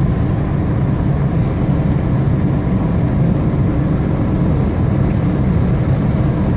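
Steady low rumble of a car driving along, heard from inside the cabin: engine and road noise with no sudden events.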